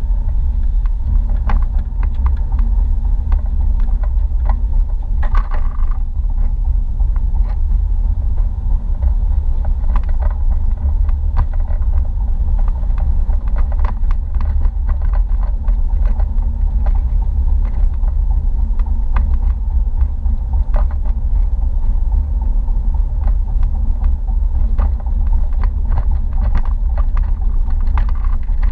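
Car driving at road speed, heard from inside the cabin: a steady low rumble of road and engine noise, with scattered light ticks.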